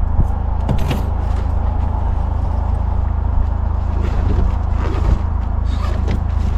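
Steady low engine hum, with scattered light scrapes and clicks of gear being handled in a storage drawer.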